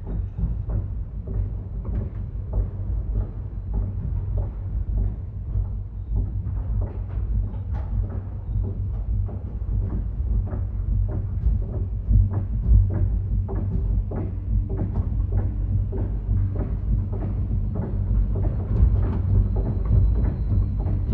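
Dark ambient sound bed for an animated film: a heavy low rumble with frequent irregular clicks and knocks over it.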